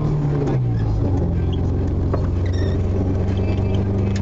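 Vehicle engine running, heard from inside the cabin: a low drone that drops in pitch about half a second in and then holds steady.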